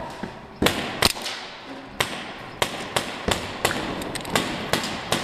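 Airsoft pistols firing, about a dozen sharp cracks at an uneven pace of two or three a second, each echoing briefly in a large warehouse space.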